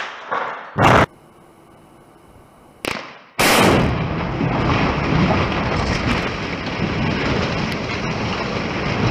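Explosive demolition charges going off under a steel quarry hopper: a sharp blast about a second in and a shorter bang near three seconds. After that comes a long, loud rumble of the structure and debris coming down.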